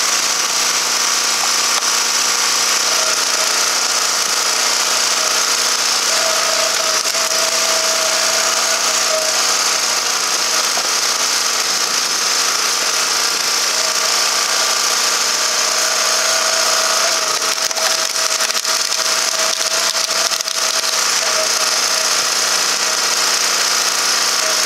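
Log splitter running with a steady motor noise, and a whine that comes and goes as it works, with some sharp crackling in the second half.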